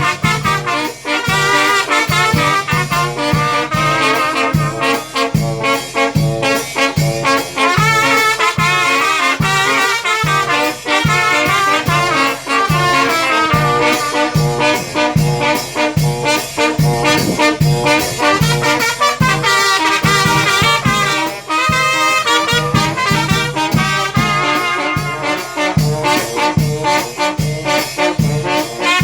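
Mexican banda brass band playing: trumpets and trombones carry the tune over low bass notes on a steady beat.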